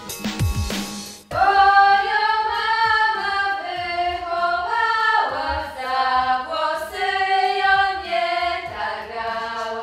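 A beat-driven music track with drums cuts off about a second in, and a cappella voices take over, singing long held notes in a slow, sustained choral style.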